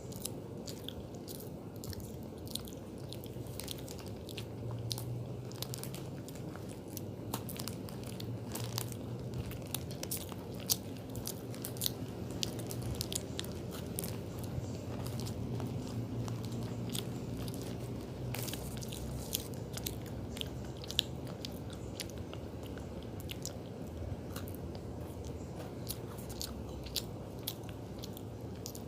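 A person chewing a cookie close to the microphone, with many sharp crunches and crackles over a steady low rumble of chewing.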